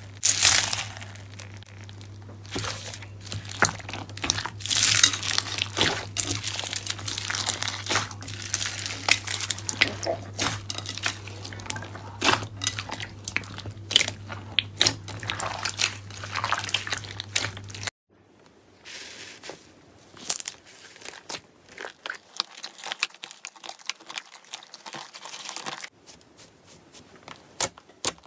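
Crunchy slime being squeezed and pressed by hand, crackling with many small sharp pops, a steady low hum beneath it. About two thirds through it cuts to a quieter stretch of sparser clicks and crackles.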